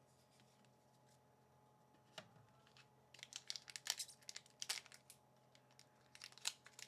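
Faint crinkling and tearing of a foil Magic: The Gathering booster pack wrapper being opened by hand, in short crackly bursts from about three seconds in, after a quiet start broken by a single click.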